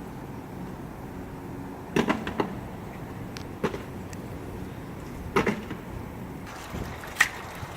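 Chunks of broken concrete knocking and clattering as they are picked out of the hole and dropped, about five separate sharp knocks spaced a second or two apart, over a steady low hum.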